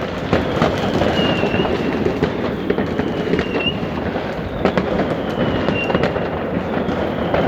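New Year's fireworks and firecrackers going off by the dozen, near and far at once: a continuous dense crackle and rumble of overlapping bangs. A thin high whistle sounds every couple of seconds.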